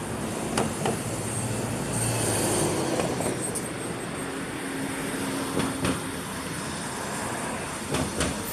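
Steady outdoor rumble of vehicle traffic, with a brief steady tone about two-thirds of the way in and a few faint clicks.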